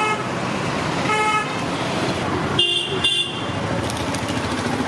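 Street traffic running steadily, with vehicle horns tooting: one short toot about a second in, then a higher-pitched double toot a little before the three-second mark.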